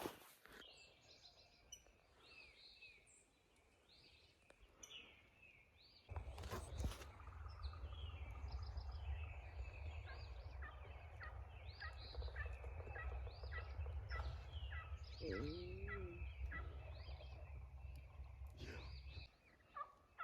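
Wild turkeys gobbling in the distance over a chorus of small songbirds chirping. From about six seconds in, a low steady rumble runs underneath until just before the end.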